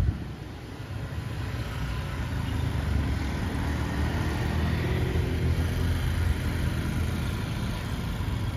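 Road traffic: car engines running past with a low rumble that grows heavier in the middle.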